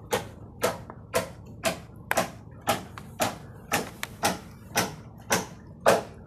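Footsteps walking along wooden planks, an even pace of about two steps a second, each step a short scuffing crunch.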